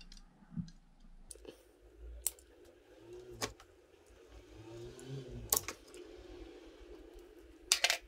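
Small metal parts clicking and tapping as hands fit a coaxial cable into a CB antenna base: a few sharp, separate clicks, the loudest close together near the end, over a faint steady hum.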